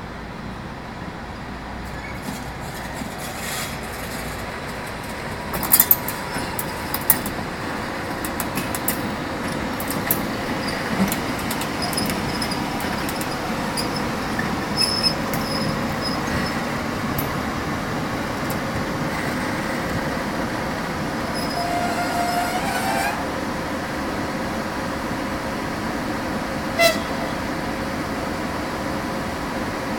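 ChS2T electric locomotive at a passenger train during coupling: a steady hum and rumble, with a run of sharp metallic clanks and knocks from about six seconds in, a short squeal a little past the middle, and one more knock near the end.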